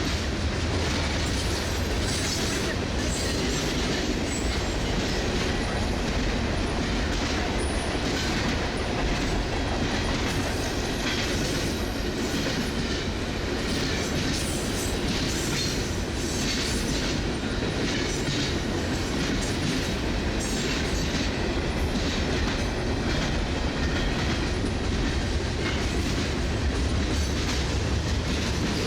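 Freight cars of a CSX mixed-freight manifest train rolling past, with a steady run of wheel clicks over the rail joints.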